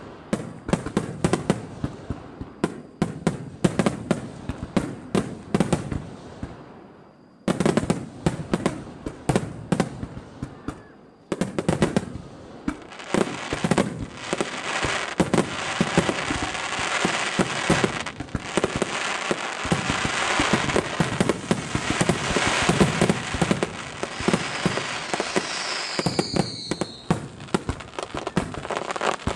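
Fireworks starmine barrage: many aerial shells going off in quick succession, each a sharp bang, with two brief lulls in the first half and then a dense, continuous crackle under the bangs.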